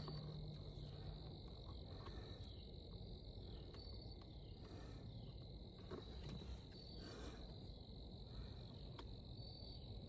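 Faint chorus of crickets, a steady high trill with short higher chirps every few seconds, and a few faint clicks.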